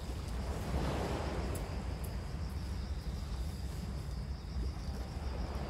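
Outdoor ambience: a steady low rumble of wind on the microphone, with a faint, steady high-pitched tone running underneath.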